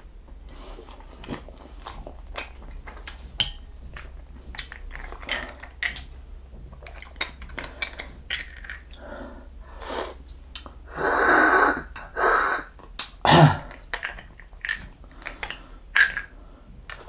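Close-miked eating sounds: chewing and lip smacking with clicks and scrapes of utensils on the bowl. About eleven seconds in come two loud, airy sucking intakes, followed by a short voiced grunt.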